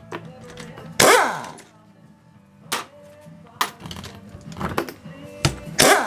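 Metal tool knocking and clanking against the transmission case as a part is worked loose: about half a dozen sharp metallic hits, the loudest about a second in and another near the end, each ringing briefly.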